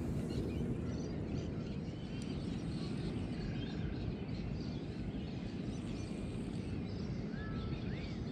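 Outdoor dawn ambience: a steady low rumble with birds chirping and calling throughout, including a rising-then-falling call near the end.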